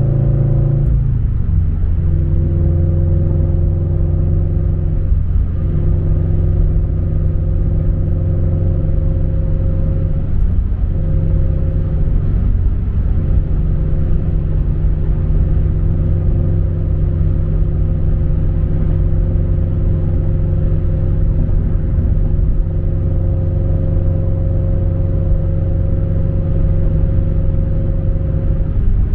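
Subaru BRZ's flat-four engine through an MAperformance 3-inch catback exhaust, heard from inside the cabin while cruising: a steady low rumble. The engine note drops in pitch about a second in, then holds steady.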